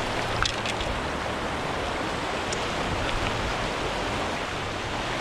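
Small mountain creek rushing steadily over rocks, with a couple of faint clicks.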